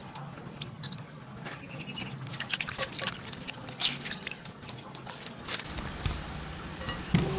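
Wet squelching and dripping of raw tuna cubes squeezed and kneaded by hand in vinegar, an irregular scatter of small wet clicks and splats: the fish is being washed in vinegar for kinilaw.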